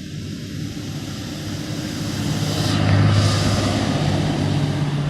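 A vehicle's engine passing by: a steady low engine hum with a rushing noise that swells to its loudest about three seconds in, then fades.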